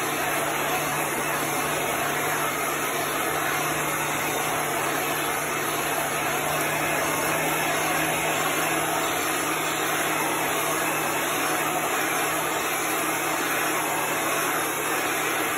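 Handheld heat gun blowing steadily, a rush of air over a low motor hum, as it is swept back and forth to dry fresh paint on a wooden board.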